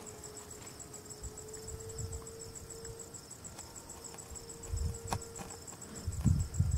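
Insects trilling steadily in the background: a high-pitched, fast and even pulsing that never stops. A sharp click comes about five seconds in, and a few low rumbles near the end.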